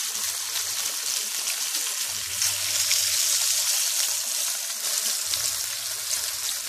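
Pork chop frying in hot oil in a skillet: a steady sizzle with many fine crackles and pops.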